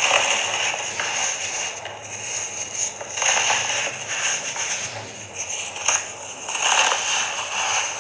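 Crunching and crackling of something being crushed, swelling three times, about every three to four seconds.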